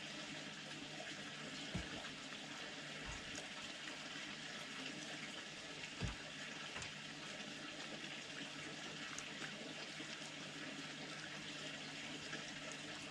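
Red fox eating wet food off a metal tray: a few soft knocks as it bumps and licks the tray, the loudest about six seconds in, over a steady hiss.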